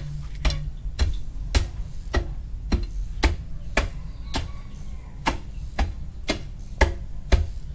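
Soil being tamped down around a newly set post: a steady run of sharp thuds, about two strikes a second, packing the earth firm so the post won't fall over.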